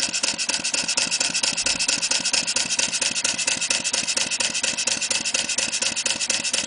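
Clarkson model vertical steam engine running on compressed air with its Stephenson valve gear in full gear, giving a rapid, even run of air exhaust beats. It is running freely.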